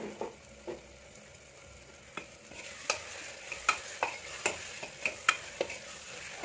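A steel ladle stirring and scraping masala frying in an aluminium pressure cooker, clinking against the pot about twice a second from about two seconds in, over a sizzle that grows louder partway through.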